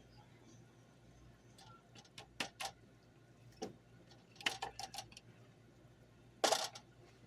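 Utensil clinking against glass canning jars and the cooking pot as soup is ladled into the jars. Scattered sharp clinks: a pair a little over two seconds in, a single one, a quick cluster of several, and the loudest near the end.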